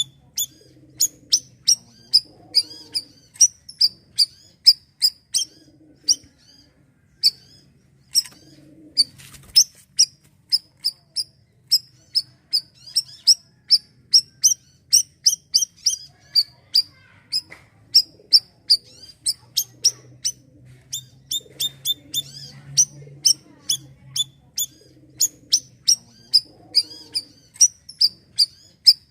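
Bayeman (siri-siri) songbird singing steadily in full song: a long run of short, high, sharp chirps, about two or three a second, broken by a few brief pauses.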